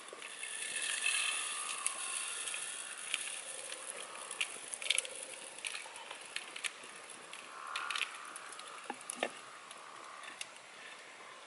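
Scattered clicks, scrapes and rustles of rice being packed by hand into an upright green bamboo tube, with a few sharper knocks in the middle.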